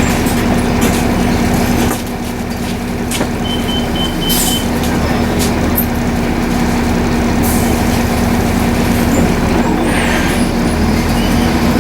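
Volvo B7RLE bus's six-cylinder diesel engine and drivetrain running steadily, easing off about two seconds in, with a few short hisses of air.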